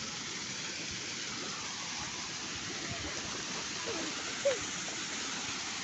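Waterfall rushing steadily, with a brief faint voice about four seconds in.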